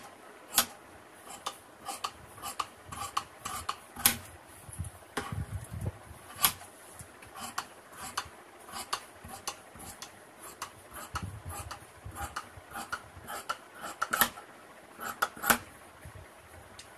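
Large tailor's shears cutting through folded cotton fabric: the blades snip and close with sharp metallic clicks at irregular spacing, a few much louder than the rest, with runs of quicker small snips between.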